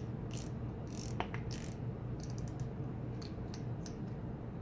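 Light, irregular clicks and ticks from a CNC aluminium spinning reel as its drag knob is tightened down and the reel is handled, with a cluster of quick clicks midway, over a faint steady hum.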